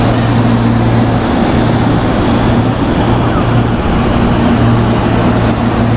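Electric commuter train running slowly through a station, with a steady low hum over constant rushing noise.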